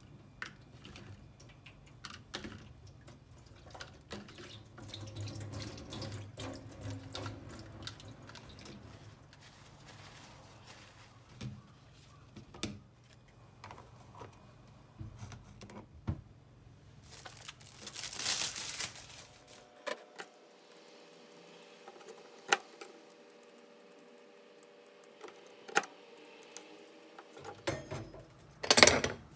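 Kitchen prep at a stainless-steel sink: small clicks and taps of mini tomatoes and plastic containers being handled. A tap runs for about two seconds midway. A few louder knocks come near the end.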